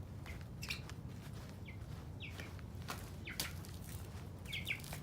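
Chickens giving short, high chirping calls, about half a dozen spread through these seconds, while being chased to be caught. Light scuffs and steps are heard between the calls.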